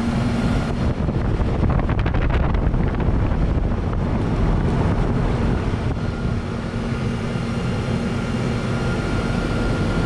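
Trane XC1000 heat pump outdoor unit, a 1999 3.5-ton, running in heat mode: a steady compressor hum under the even whoosh of the condenser fan. It is working well, its refrigerant line very hot.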